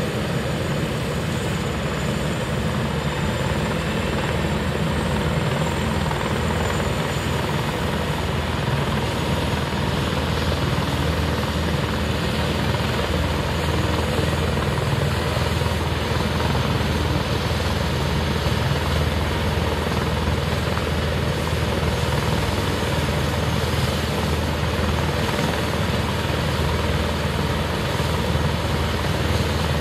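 Air ambulance helicopter running on the landing pad ahead of take-off: a steady low drone from the engines and rotor with a faint high whine.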